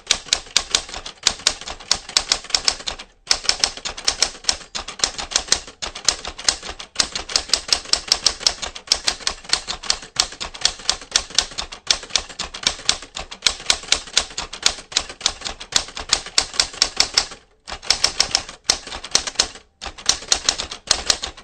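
Typewriter typing sound effect: a rapid, continuous run of key clicks as text is typed out, with short pauses about three seconds in and twice near the end, then stopping abruptly.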